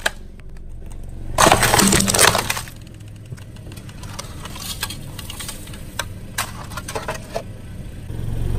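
Crushed plastic candy shell and nuts being handled on concrete: a burst of crunching and rattling, then scattered clicks and taps as shell pieces and nut fragments are moved. Louder crunching starts again near the end.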